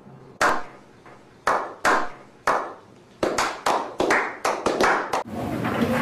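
Hand claps, spaced about half a second apart at first, then quickening into a rapid run about three seconds in and stopping abruptly near the end, where a steady wash of background noise comes in.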